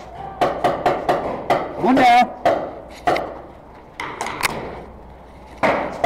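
Paintball markers firing: a quick string of sharp pops over the first three seconds, two more around four seconds in, and another string starting near the end. A short shout comes about two seconds in.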